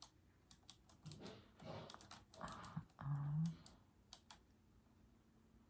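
Typing on a mechanical keyboard: quick runs of key clicks in an irregular rhythm that stop about four seconds in. A short low tone about three seconds in is the loudest moment.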